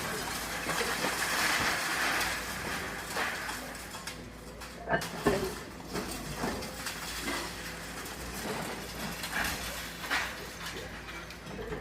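Excavator demolishing a building: a steady machine noise with scattered knocks and clatters of breaking debris, the sharpest a pair of knocks about five seconds in and more around ten seconds.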